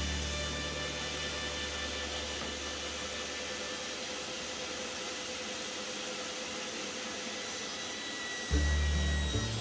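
Bosch UniversalVac 15 shop vacuum running steadily as dust extraction for a table saw: an even hiss with a faint steady tone.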